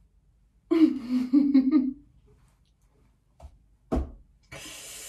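A woman's short wordless vocal sound, like a hummed laugh, about a second long, then a single click and a long breathy sigh near the end.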